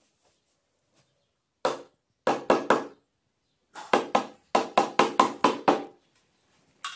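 A metal spoon knocking repeatedly against the dish as wet dog food is tapped off it: one knock, then a quick group of about four, then a faster run of about nine.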